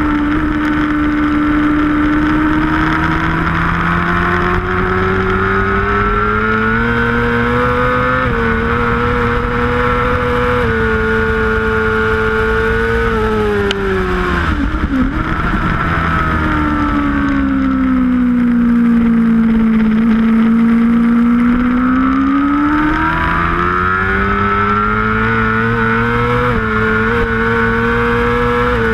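750cc superbike engine at racing revs, recorded onboard. Its pitch climbs hard under acceleration, falls away with a quick flurry of downshifts about halfway through, dips lowest through a slower corner about twenty seconds in, then climbs again under full throttle.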